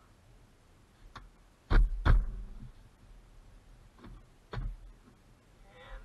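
A few sharp knocks and snaps of a hard plastic interior trim panel being pressed into place against a car's door pillar. The loudest are two close together about two seconds in, with softer ones about a second in and two more around four and a half seconds.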